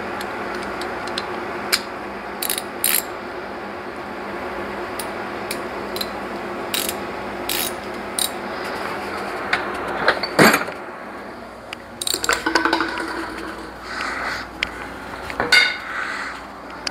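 Metal hand tools clicking and clinking at irregular intervals during work on a car engine's belt-driven accessories, over a steady low hum. A few louder clanks come in the second half.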